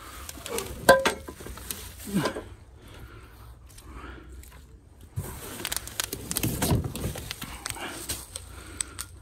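Steel sawmill parts being handled: a sharp metallic clank with a brief ring about a second in, then rustling, scuffing and clicking as wrapped parts and packing are moved about.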